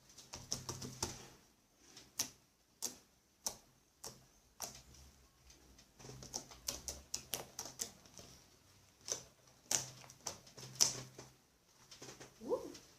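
Fluffy slime being squeezed and pressed by hand, making a quick, irregular series of sharp clicks and pops: the slime's 'click' sound.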